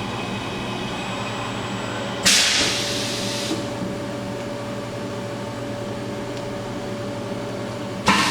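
Milltronics MM18 Partner vertical machining center going through a simulated tool change on its umbrella-style 16-tool changer. Under a steady machine hum, a loud hiss starts about two seconds in and fades over a second or so. A sharp knock with another hiss comes near the end.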